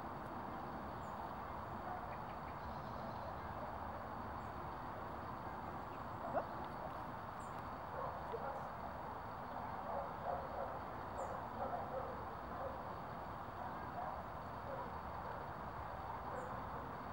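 Steady outdoor background noise with a few faint, short bird chirps, and a single soft knock about six seconds in.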